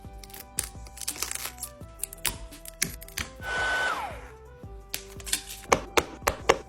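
Background music with many short, sharp clicks and cracks, and a brief hiss with a falling tone about three and a half seconds in.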